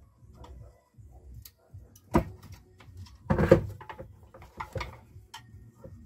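Clicks and knocks of hands working on the plastic housing of a Karcher NT 70/2 vacuum cleaner while the wire terminals are pulled off its motor. There is a sharp knock about two seconds in and a louder cluster of knocks about three and a half seconds in.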